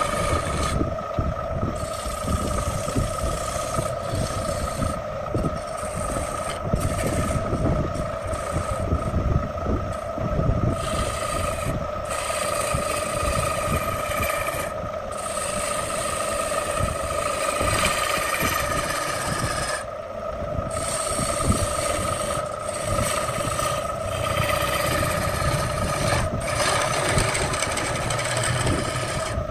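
Belt-driven wood lathe running with a steady hum while a hand-held turning tool cuts the spinning wooden bowl, a rasping, scraping hiss of shavings that stops and starts several times as the tool is lifted and pressed back in.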